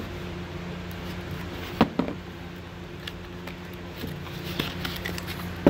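Handling a small cardboard box being opened with a utility knife: the blade slitting packing tape, then a few sharp clicks and knocks of the knife and cardboard, the loudest about two seconds in and at the very end, over a steady low hum.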